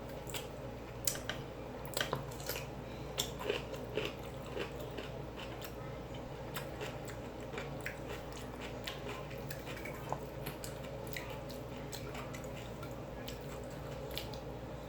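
A person chewing and biting food close to the microphone: irregular mouth clicks, loudest and most frequent in the first few seconds, then sparser.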